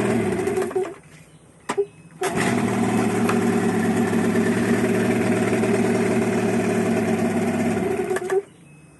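15 hp outboard motor running, cut off about a second in; after a short pause it is pull-started and catches at once, runs steadily for about six seconds, then is switched off again near the end.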